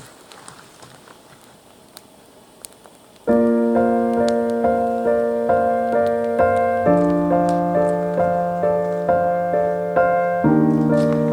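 Faint quiet ambience with a few small clicks, then background piano music starts abruptly about three seconds in: a steady pulse of notes over held chords that change twice.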